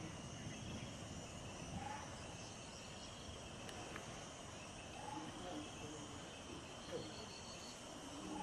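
Forest ambience: insects chirring steadily, with a pulsing high note that comes and goes, and a few faint short bird calls.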